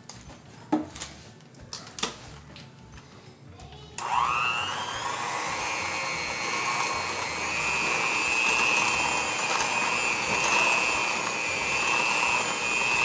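Electric hand mixer switched on about four seconds in, spinning up with a short rising whine and then running at a steady high whine as its beaters blend butter and powdered sugar into buttercream. Before that come a couple of sharp knocks.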